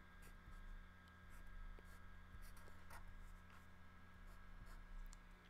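Faint scratching strokes of a Sharpie fine-point marker writing numbers and a plus sign on paper, over a steady low electrical hum.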